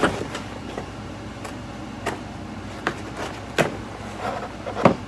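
Scattered light clicks and taps from packaging and kit items being handled, about half a dozen sharp ones spread over a few seconds.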